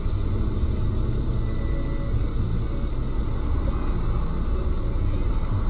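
Steady low rumble inside a stopped car, picked up by its dashboard camera: the car's engine idling.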